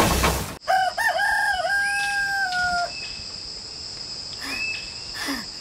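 Rooster crowing once: a long call, wavering at first and then held steady, starting just after background music cuts off. A steady high-pitched hum and a few short bird chirps run beneath it.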